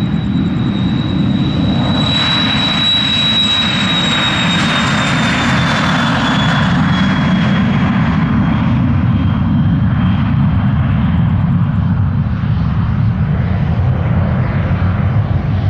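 Cessna Citation Excel/XLS business jet's two rear-mounted Pratt & Whitney Canada PW545 turbofans at takeoff power as it rolls past and lifts off: a loud, steady rumble with a high fan whine that slides slightly down in pitch as the jet goes by.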